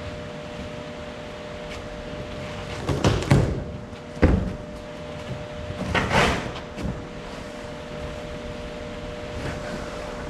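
A steady mechanical hum with a few scraping, rustling knocks and one sharp bang about four seconds in.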